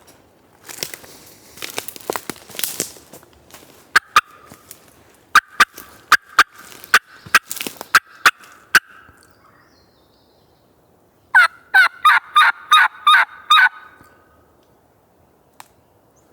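Turkey calling at close range: sharp clucks, then a loud run of about nine evenly spaced hen yelps, a locator call that draws no gobble in answer. Leaves rustle underfoot early on.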